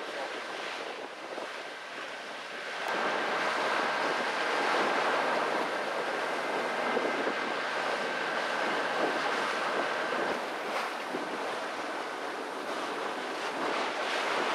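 Open-sea waves and wind rushing past a sailboat, with wind buffeting the microphone. The rush grows louder about three seconds in, and a thin steady high tone runs through the middle for several seconds.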